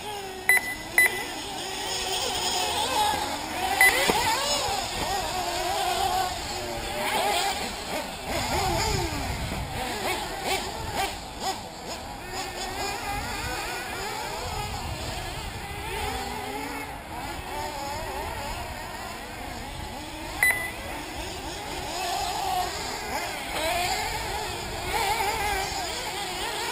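Several 1/8-scale nitro RC buggy engines racing, their high-pitched whine rising and falling constantly as they rev through the track. A few short, sharp high beeps cut through near the start, about four seconds in and about twenty seconds in.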